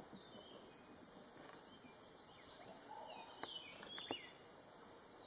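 Faint outdoor ambience with birds calling in the background. About three seconds in, Montezuma oropendolas give a short burst of calls: falling whistled notes, a gurgle and a couple of sharp clicks.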